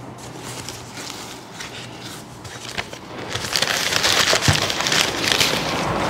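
Cardboard box flaps being opened with a few light clicks, then from about three seconds in a louder crackly rustling as packing material is pulled out of the box.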